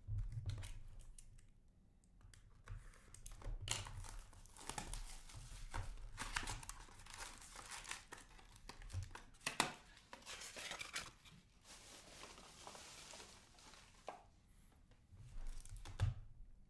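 Plastic shrink-wrap being torn off a SPX hockey card box and crinkled, then the box being opened and its foil card packs pulled out and handled, with continuous rustling and a few sharp snaps, the loudest about ten seconds in.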